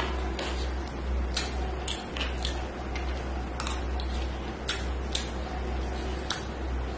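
Close-up eating sounds of a person chewing rice and chicken curry eaten by hand: wet mouth clicks and smacks at irregular intervals, over a steady low hum.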